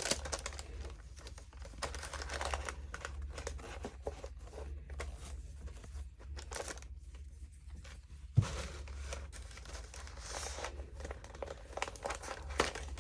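Hands handling a microwave flower press and its fabric and felt pads: irregular rustling and small clicks, with one sharp click about eight seconds in, over a low steady hum.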